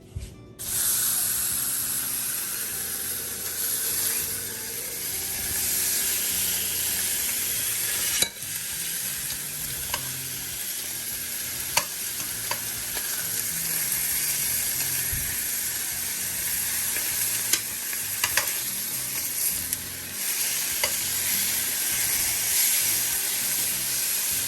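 Bacon sizzling in a frying pan: a steady hiss that starts suddenly just after the beginning, with scattered sharp pops of spattering fat.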